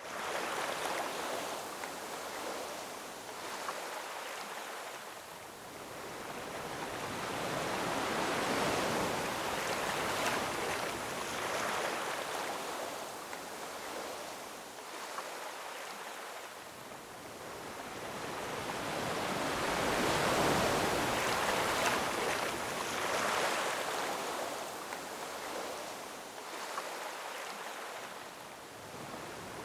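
Ocean surf washing over shoreline rocks: a continuous rush of water that swells and fades in slow surges, about one every eleven seconds.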